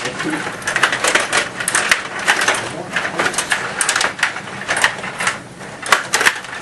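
Stiga table hockey game in play: a rapid, irregular clatter of clicks and knocks from the rods being pushed and spun and the puck striking players and boards.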